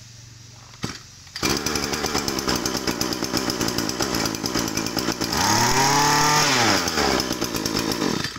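Small brush cutter engine (34 mm bore, 26 cc) pull-started, catching about a second and a half in and running fast. It is revved up and back down once about five seconds in, then cuts off near the end.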